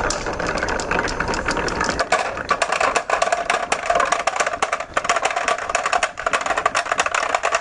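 Marbles rolling and clattering down a wooden marble run, a dense rattle of rapid clicks and knocks that thins to separate sharper clicks after about two seconds and stops abruptly at the end.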